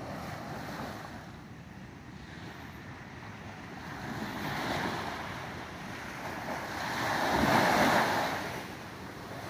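Small waves breaking and washing up on a sandy beach, in two surges, the second and louder one near the end.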